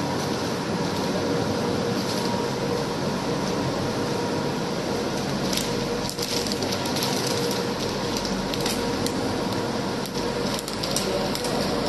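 Vacuum pump running steadily with a hum, drawing down a glass-lamination bag. From about halfway in, irregular crackling and snapping joins it.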